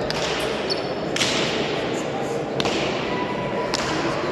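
Hand pelota ball being struck bare-handed and hitting the frontón wall during a rally: sharp cracks roughly every one to one and a half seconds, each ringing on in the large hall.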